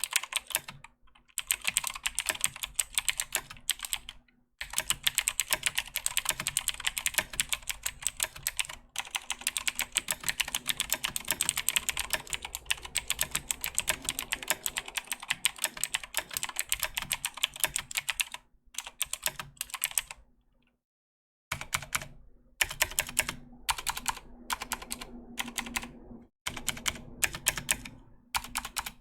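Fast, continuous typing on a Razer BlackWidow 2014 Tournament Edition mechanical keyboard with clicky Razer Green switches: rapid, sharp keystroke clicks. It stops for a few short pauses, the longest about three quarters of the way through.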